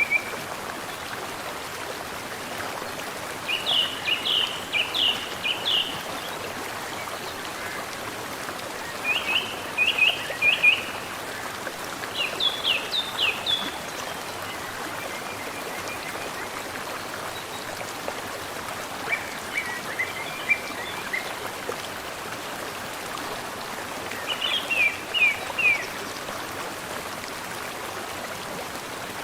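Mountain stream flowing steadily, with a songbird singing short phrases of quick, descending notes every few seconds.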